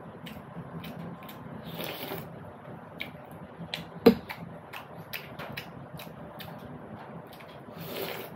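A person chewing and eating jalebi and puri close to the microphone: scattered wet mouth clicks and smacks, with a sharp click about four seconds in. Two short breathy rushes come about two seconds in and near the end.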